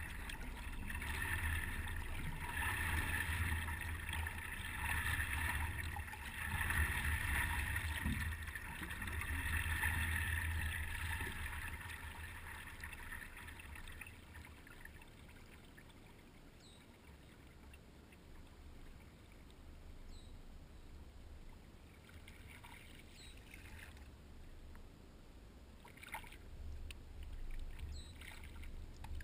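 Water swishing and lapping against a paddleboard as it glides along, louder for the first dozen seconds and then dropping to a faint wash.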